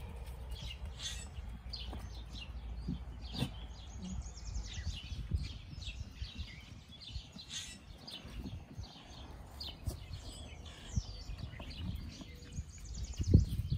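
Small birds chirping and trilling over a low rumble, with a loud thump near the end.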